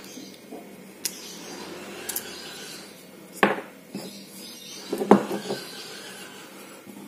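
Small metal fishing-reel parts and tools clicking and clattering on a hard work surface during disassembly: a couple of sharp clicks, then louder clatters about three and a half seconds in and again around five seconds.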